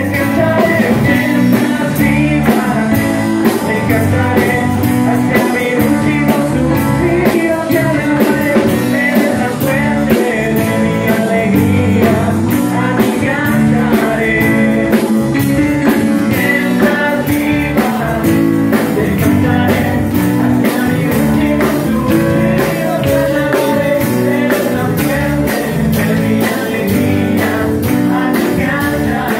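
Live band playing an upbeat praise song with a steady drum beat, electric guitar, bass and keyboard, with men singing the lead into microphones.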